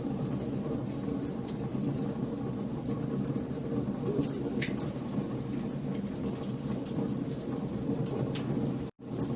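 Wood fire burning in a fireplace: frequent small sharp crackles and pops over a steady low rumble of the flames. The sound cuts out for an instant near the end.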